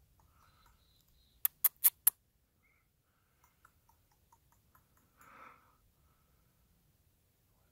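Four sharp clicks in quick succession about a second and a half in, followed by fainter scattered ticks and a short breathy rustle a little after five seconds.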